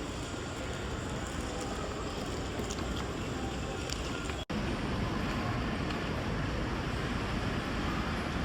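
Steady rushing ambient noise, broken by an abrupt cut about four and a half seconds in.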